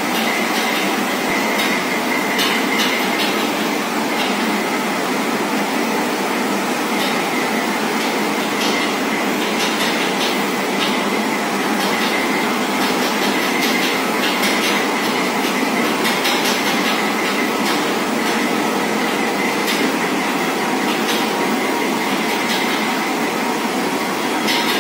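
Steady train running noise, thin and hissy with no deep bass, with faint clicks now and then.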